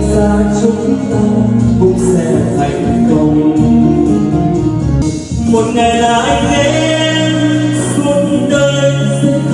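A song with a singer holding long, drawn-out notes over instrumental backing. The voice is in Vietnamese.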